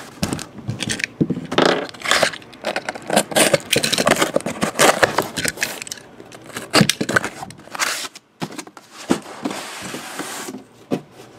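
A sealed cardboard shipping case being opened by hand: a busy run of scrapes, rips and knocks as the packing tape is torn and the cardboard and the boxes inside are handled, with a longer rasp about nine seconds in.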